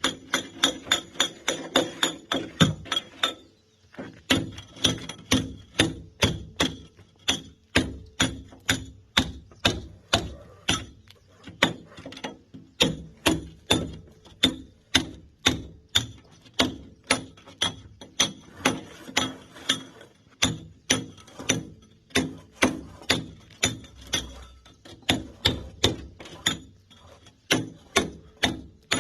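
Mason's hammer striking a steel chisel to break concrete, each blow a sharp ringing clink. Quick blows at first, a short pause about three seconds in, then a steady pace of about two blows a second.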